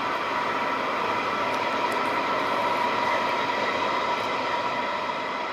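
Natural gas well flare burning off gas: a loud, steady rushing noise with a whistling tone running through it.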